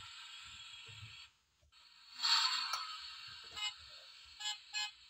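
Sound chip of a 1/32 scale die-cast Toyota RAV4 model playing through its small speaker. A steady sound stops about a second in, a louder burst follows a second later, then three short beeps come near the end. Small clicks from handling the model and opening its door.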